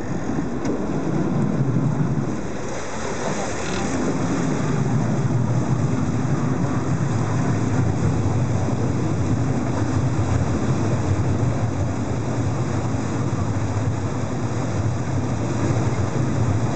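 A boat's engine running steadily with a low hum, under a rumble of wind on the microphone and the rush of water, heard from aboard the moving boat.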